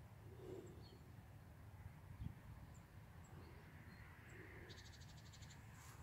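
Near silence: faint outdoor background with a low rumble, a few faint distant bird calls and a single soft thump about two seconds in.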